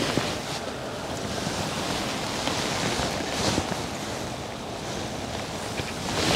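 Steady hiss of falling rain mixed with wind buffeting the microphone, with a few faint ticks.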